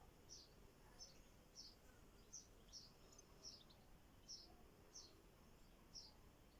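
Faint bird chirping: about ten short, high chirps, unevenly spaced, over a low background hiss.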